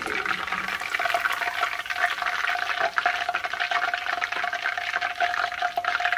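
Battered chicken pieces frying in hot oil in a cast-iron pot: a dense, steady crackling sizzle as a wire spider strainer lifts a batch out after the first fry. A steady tone runs underneath.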